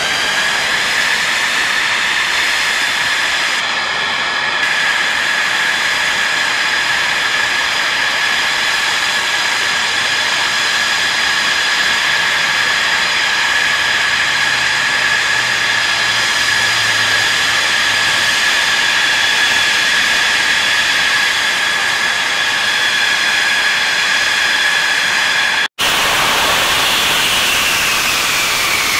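F-16 Viper's General Electric F110 turbofan idling on the ramp: a steady high whine with a rushing hiss, its pitch rising slightly at the start. Near the end the sound drops out for an instant, and afterwards the whine slides down in pitch.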